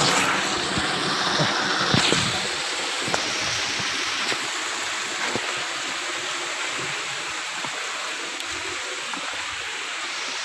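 Waterfall rushing: a steady, dense hiss of falling water, a little louder in the first two seconds, with a few light knocks over it.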